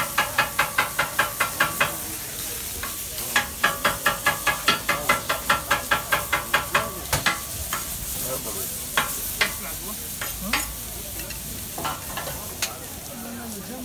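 Metal griddle scraper chopping grilled chicken breast into strips on a hot flat-top griddle: rapid, even clacks of the blade striking the plate, about five a second. The clacks come in two runs with a short pause about two seconds in, then a few scattered taps, over a steady sizzle of frying food.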